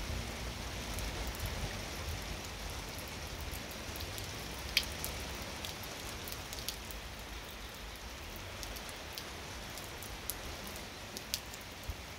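Gentle, steady rain falling with an even hiss, and now and then single drops ticking sharply close by, the clearest about five seconds in. A low rumble fades out in the first couple of seconds.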